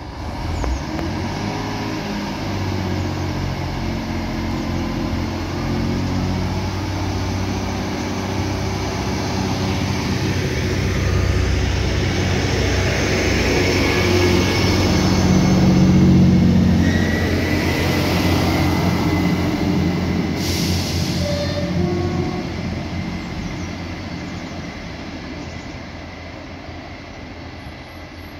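A Class 158 diesel multiple unit's underfloor diesel engines running as the train moves along the platform, with the rumble of its wheels on the rails. The sound grows loudest about halfway through as the train passes close, then fades as it draws away.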